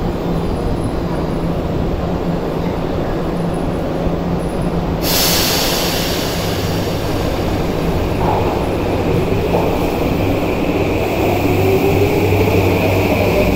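Electric commuter trains in an underground station: a steady rumble, then a sudden hiss sets in about five seconds in. From about eight seconds a rising motor whine builds as a train gets moving, and a train runs alongside the platform near the end.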